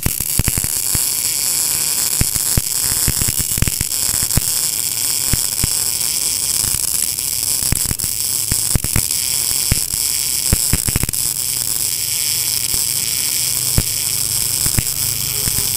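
MIG welding arc from an NBC-288 inverter welder laying a corner bead on steel: a loud, steady hiss full of sharp, irregular crackling pops as the wire feeds into the weld.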